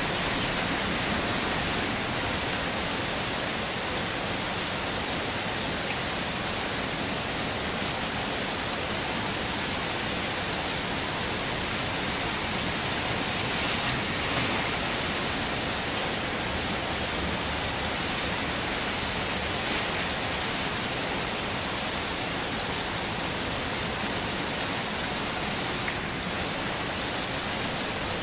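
Heavy rain falling in a steady, even hiss, with a brief dip in the high hiss about every twelve seconds.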